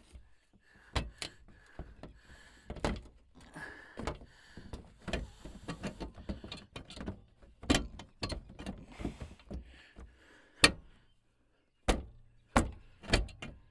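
Irregular sharp clicks, clunks and knocks of a plastic headlight assembly being handled and fitted into the front of a pickup, the loudest knock about three-quarters of the way through.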